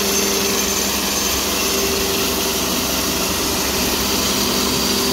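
A TimberKing 2220 portable bandsaw sawmill running steadily under load as its resharpened carbide-tipped band blade saws lengthwise through a log. The engine's hum and the blade's cutting noise stay even throughout.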